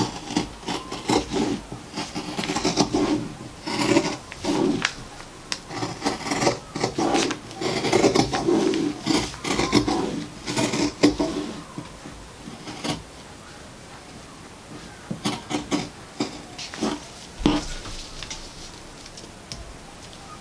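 Large sheet of paper sewing pattern and the fabric under it rustling and rubbing as a hand smooths and handles them, in irregular scraping bursts that thin out after about 13 seconds.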